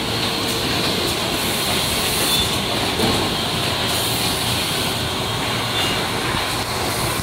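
Steady mechanical running noise of automatic rigid box making machines in production, with a couple of faint, brief high tones.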